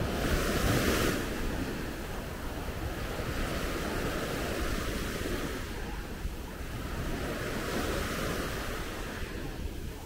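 Sea waves washing onto a sandy beach in a steady hiss, swelling loudest near the start and again around eight seconds in, with wind buffeting the microphone.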